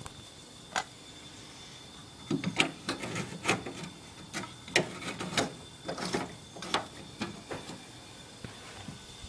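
Irregular clicks and clunks of hands handling caps and parts in a car's engine bay with the engine off, a dense run of them from about two seconds in.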